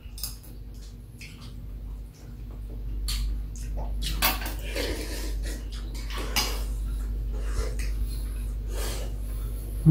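Eating at a table: metal spoons and chopsticks clink and scrape on ceramic bowls now and then, mixed with brief mouth sounds of eating soup.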